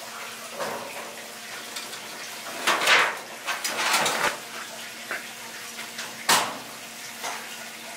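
Rummaging in a storage cabinet for a wire cooling rack: metal clatter and rattles about three and four seconds in, and one sharp knock just after six seconds.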